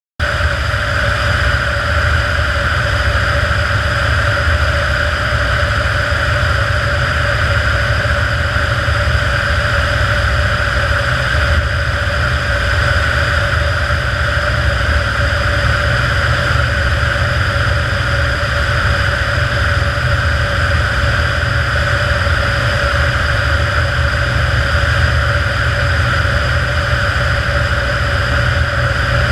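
Kitfox IV floatplane's engine and propeller running steadily in level flight, heard from a camera mounted outside the airframe behind the propeller. The sound cuts in abruptly just after the start and holds one even pitch throughout.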